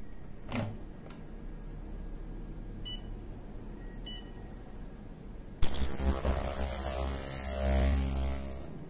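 Two short electronic beeps from the facial machine's touchscreen. Then the ultrasonic skin scrubber handpiece runs for about three seconds with a loud high-pitched whine over a buzz, starting suddenly and cutting off.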